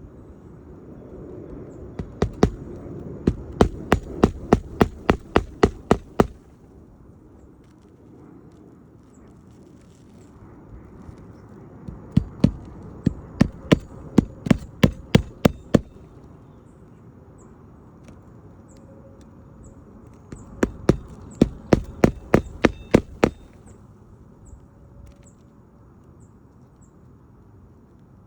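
Hand hammer striking on an asphalt-shingle roof during a shingle repair: three runs of steady blows, about three a second, with pauses between.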